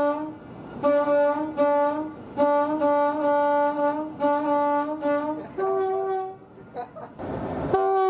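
Class 37 diesel locomotive's two-tone air horn sounded from the cab in a string of short and longer blasts, mostly on the low note, with high-note blasts near the end. A loud rushing noise comes in near the end.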